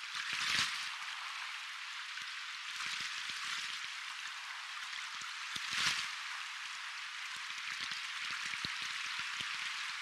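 Soft ocean waves washing in: a steady hiss of surf with fine fizzing, swelling louder twice, about half a second in and again near six seconds.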